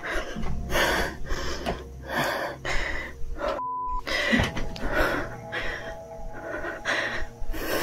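A frightened woman breathing quickly and heavily, two or three breaths a second. About three and a half seconds in, a short censor bleep covers her swearing.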